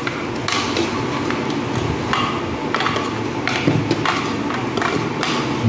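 Hard plastic toy ring pieces clicking and knocking against each other as they are handled and fitted together. There are about six sharp clicks at irregular intervals over a steady background hiss.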